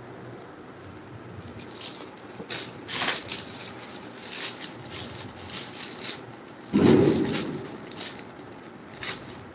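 Sarees rustling and crinkling as they are handled and smoothed out flat on a table, in a string of short scrapes. About seven seconds in comes a louder, dull bump.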